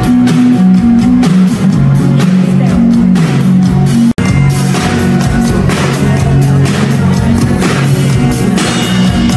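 Pop-rock band music with a steady drum beat, a bass line moving between notes and guitar. The sound cuts out for an instant a little after four seconds in.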